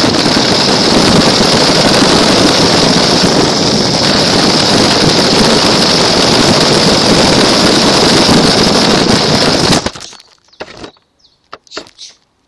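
Toy remote-control car driving, heard from a camera mounted on it: a loud, steady motor whine over a dense rattle from the wheels and body on the ground. It stops suddenly about ten seconds in, leaving a few short scrapes and clicks.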